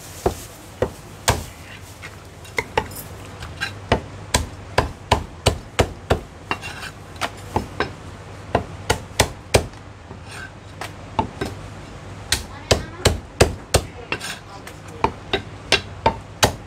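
A Chinese cleaver chops a poached chicken into pieces on a thick round wooden chopping block: a run of sharp chops, about two to three a second, with a couple of short pauses between runs.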